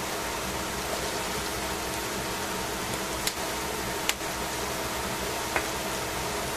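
Cabbage, carrots and maitake mushrooms sizzling steadily in a stainless steel pan, with a few sharp pops about three, four and five and a half seconds in. A steady low hum sits underneath.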